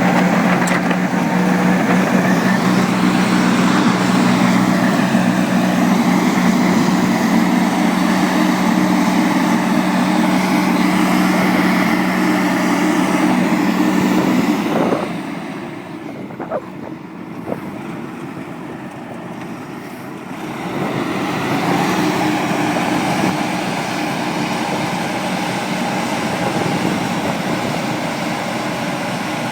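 Diesel engine of farm machinery, a tractor or combine harvester, running steadily with a strong even hum. About halfway through, the sound drops suddenly to a quieter engine noise, then grows louder again a few seconds later.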